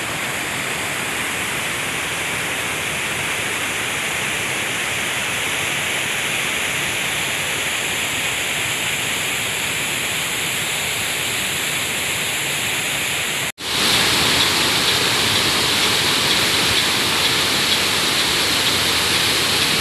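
Steady rush of a waterfall's falling water. It cuts out abruptly for a moment about two-thirds through and then comes back louder and brighter.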